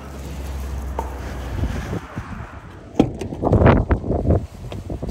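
Ford F-150 pickup's door unlatching with a sharp click about three seconds in, then loud rustling of plastic grocery bags in bursts as they are handled at the open door. Before that, a steady low rumble.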